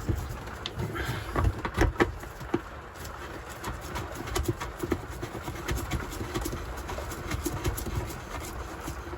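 Irregular knocks and clicks of hands and tools working on a toilet install, sharpest and most frequent in the first few seconds, then lighter scattered ticks.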